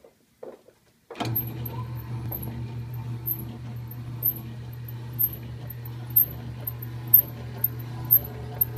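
Hobart mixer's motor switched on about a second in, starting with a clunk and then running with a steady low hum as it drives an empty #12 meat grinder attachment. A sharp tick repeats about once a second.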